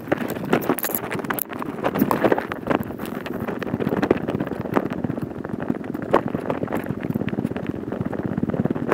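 Footsteps crunching and scuffing on a dry dirt trail strewn with leaves and twigs, an irregular crackle with a few sharper snaps.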